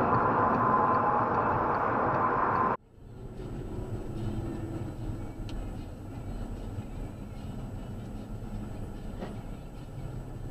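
In-car road and wind noise from a car at highway speed, picked up by a dashcam. It cuts off abruptly about three seconds in and gives way to a much quieter low rumble of a car creeping in slow traffic.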